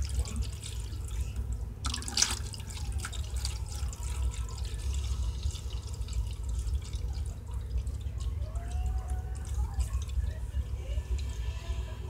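Electric pet water fountain running: its stream trickles and splashes steadily into the bowl, over a steady low hum, with one sharper splash about two seconds in.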